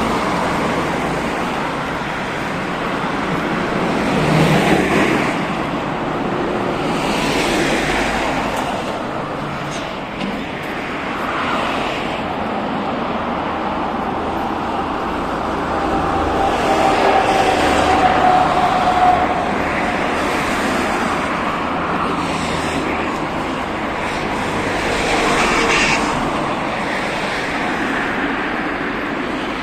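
Road traffic on a multi-lane street: cars and trucks passing close by, a steady traffic noise that swells and fades several times as each vehicle goes past.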